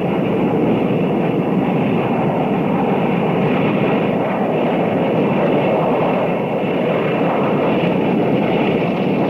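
Steam locomotive hauling a long freight train past, a steady, loud rumble of the engine and rolling freight cars.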